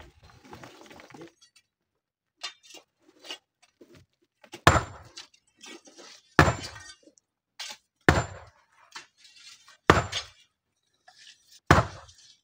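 Hammer blows on a large landslide boulder being split: five heavy strikes about every second and three-quarters, each ringing briefly. Lighter scraping and clicking of hoes in stony rubble come in between, with scraping near the start.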